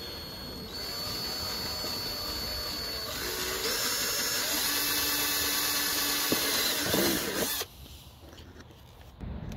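Cordless drill running, its twist bit boring through the plastic bumper grille. It gets louder about three seconds in and stops abruptly about two seconds before the end.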